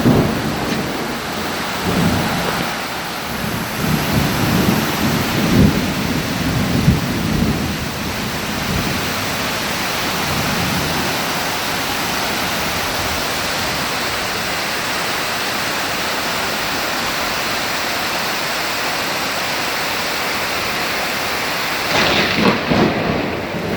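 Heavy rain falling steadily, with thunder rumbling in low swells through the first several seconds and rumbling again, louder and sharper, near the end.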